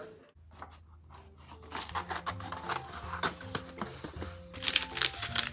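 Background music with a steady bass line, over the rustle and crinkle of plastic snack wrappers being handled, loudest near the end.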